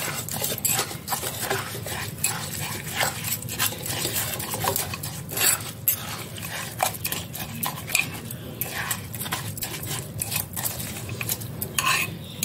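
Stirring a wet, lemon-soaked spice mixture in a glazed ceramic jar: steady wet churning with frequent irregular clicks and scrapes of a metal spoon against the jar.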